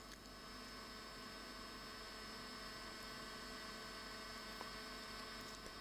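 Faint, steady electrical hum with a light hiss, unchanging throughout.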